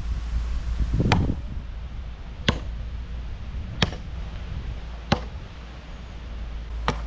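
Knife chopping on a cutting board: five separate sharp strikes, about one every second and a half.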